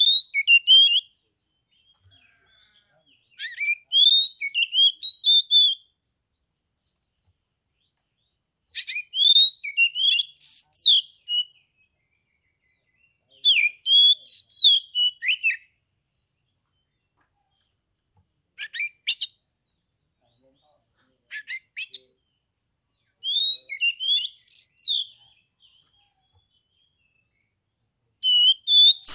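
Caged oriental magpie-robin (kacer) singing in separate short phrases of quick whistled notes that sweep up and down, with pauses of two to three seconds between phrases; two of the phrases, past the middle, are only brief clipped notes.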